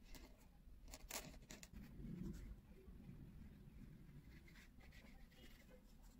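Faint scratching of a pen nib on paper, then soft strokes of a brush laying ink on the paper.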